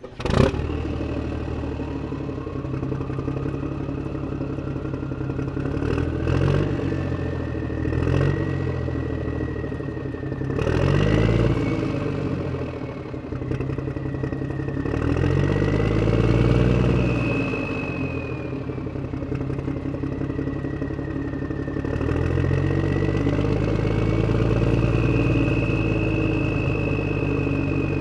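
A vehicle engine starting with a sudden catch and then running at idle, blipped up in revs several times and settling back between them.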